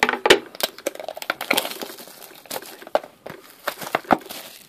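Cellophane shrink-wrap being torn and peeled off a cardboard trading-card box, giving a run of sharp, irregular plastic crackles, loudest just after the start.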